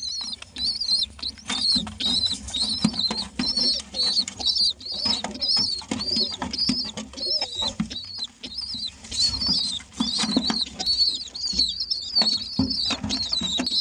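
Pigeon squabs giving rapid, high-pitched squeaky begging calls, about two or three a second, while being fed, with rustling wing flaps among them.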